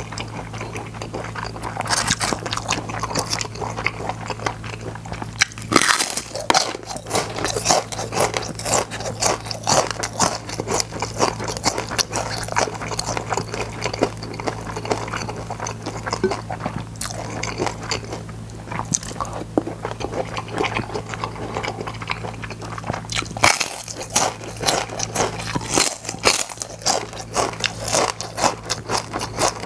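Close-miked crunching and chewing of crispy fried seaweed chips (gim-bugak), many crisp crackles in quick succession, over a steady low hum.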